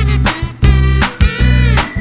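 Upbeat background music with a steady bass line and beat.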